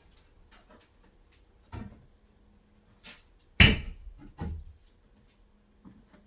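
A few short knocks and clatters from hand work on a door frame and its trim. The loudest, a sharp knock with a little ringing, comes about three and a half seconds in.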